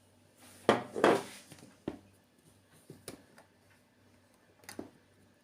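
Kitchen utensils and containers being handled on a counter: a burst of clattering knocks and scrapes about a second in, then a few single knocks spaced a second or more apart.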